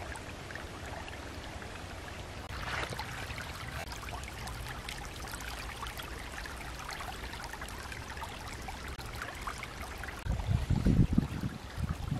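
Shallow creek running steadily over rocks, an even trickling hiss. About ten seconds in, a few loud low thumps break over it.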